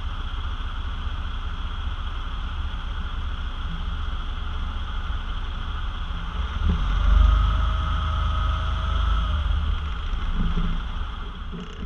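Semi-trailer truck's diesel engine idling with a steady low rumble, swelling louder for a few seconds around the middle with a faint steady whine over it.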